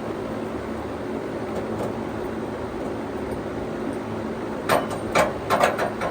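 Sawmill engine running steadily, with a cluster of sharp knocks and clatters during the last second and a half.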